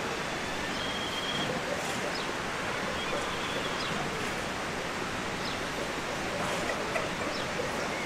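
Rural outdoor ambience: a steady rushing background noise with small birds giving short, high chirps and calls every second or so.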